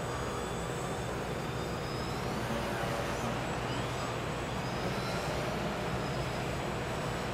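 Scratch-built EPP foam Yak RC plane's motor and propeller whining, the pitch gliding up and down several times as the throttle changes, over a steady low rumble.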